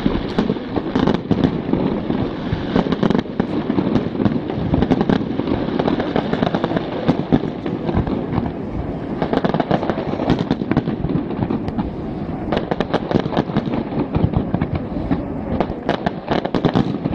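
Aerial fireworks shells bursting in quick succession: many sharp bangs and crackles overlapping without a break.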